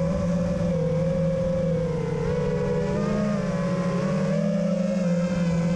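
FPV quadcopter's Hypetrain Vanover 2207.5 1860KV brushless motors and propellers whining at a fairly steady low throttle, heard from the onboard camera, the pitch wavering and shifting slightly as the throttle changes.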